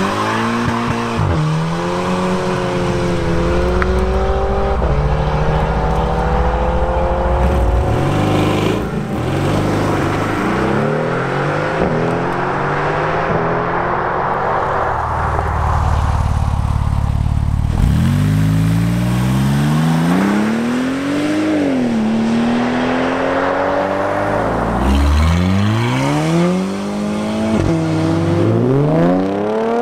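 Sports cars accelerating hard one after another, each engine rising in pitch through the gears and dropping sharply at every upshift. First the twin-turbo V8 of a Mercedes-AMG GT R pulls away, later an Audi coupe, and near the end an Audi R8's V10 accelerates toward the listener.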